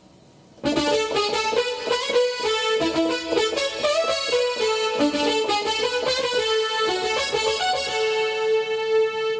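A sampled patch on the Korg M1 virtual synthesizer played as a quick melodic keyboard phrase, starting about half a second in and ending on one long held note that fades out.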